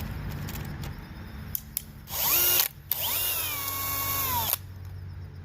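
DeWalt DCD996 cordless hammer drill driving a long screw with its clutch set to 5: a short burst of motor whine rising in pitch, a brief pause, then a longer run whose pitch drops as it takes the load, then holds steady before the trigger is released.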